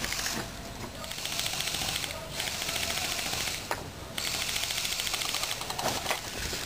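Airsoft gun firing on full auto in three long strings of rapid, evenly spaced clicking shots.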